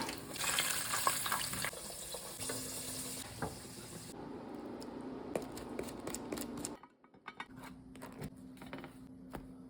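Food preparation at a kitchen counter and stove: a steady hiss with scattered clinks and knocks of utensils and dishes. The hiss is loudest in the first four seconds and drops away abruptly about seven seconds in.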